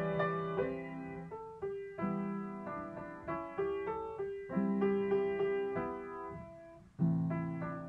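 Background piano music: a slow melody of struck notes that ring and fade, with the phrases restarting every couple of seconds.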